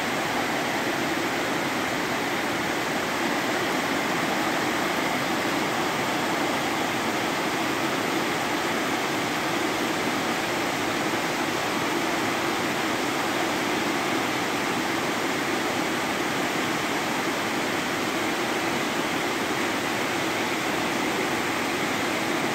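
Heavy rain pouring down steadily, a dense even hiss with no let-up.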